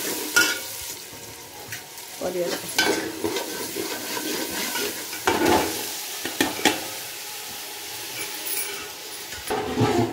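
A metal slotted ladle stirs and scrapes in an aluminium pot while spice paste sizzles in the hot oil, with several sharp clanks of the ladle against the pot. Around the middle, chopped vegetables are tipped in from a plate with a clatter.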